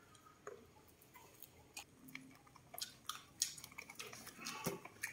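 Baby macaques chewing roasted corn kernels: faint crisp crunching clicks, becoming quicker and louder about three seconds in.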